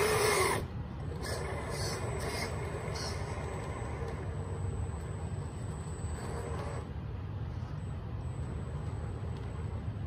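Vanquish VS4-10 Ultra RC crawler's electric motor and geared drivetrain whining in short throttle bursts: the loudest right at the start, a few brief ones over the next couple of seconds and another past the middle, over a steady low drone as the truck crawls across concrete.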